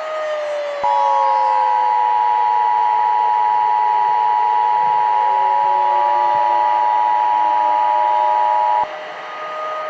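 Emergency Alert System attention signal: two steady tones sounding together for about eight seconds, starting about a second in, announcing an emergency alert. Beneath it a civil defense siren wails, its pitch falling and then rising.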